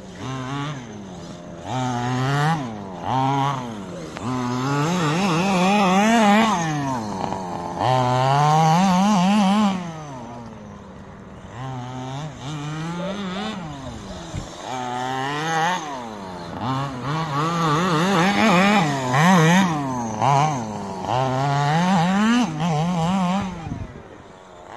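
Small two-stroke petrol engine of a 1/5-scale RC buggy revving up and down over and over as it is driven, its pitch climbing and falling every couple of seconds, with a quieter stretch of lower revs midway.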